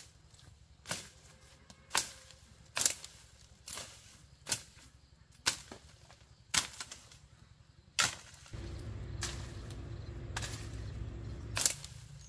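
Machete chopping through brush and plant stems, about one sharp stroke a second, with a low steady rumble underneath in the later part.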